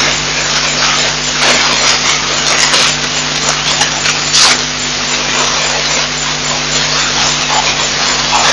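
Baboons handling the camera housing, making a loud rushing noise on the microphone with scattered rubs and bumps, over a steady electrical hum.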